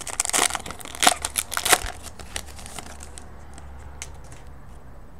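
Foil wrapper of a baseball-card pack crinkling as it is handled and torn open: a dense run of sharp crackles for about three seconds, then only a few faint ticks.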